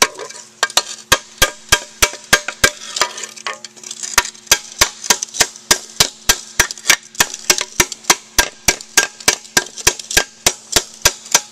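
Hammer beating dents out of a quad's skid plate: a fast, even run of sharp strikes, about three to four a second, over a faint steady hum.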